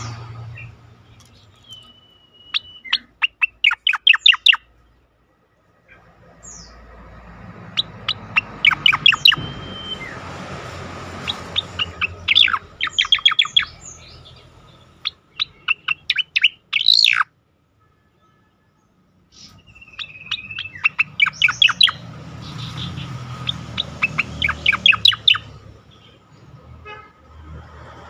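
Striated grassbird (cica koreng) singing in repeated phrases. Each phrase opens with a short whistle and runs into a fast string of sharp, loud notes, about five a second, with pauses of one to three seconds between phrases.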